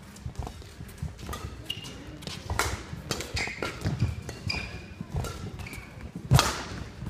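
Badminton rally: sharp cracks of rackets hitting the shuttlecock, with the loudest hit about six seconds in, amid short squeaks of court shoes and thudding footfalls on the court floor.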